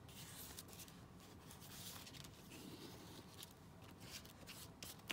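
Faint scratchy rustling of paper being handled and pressed down while it is glued, in a quiet small room.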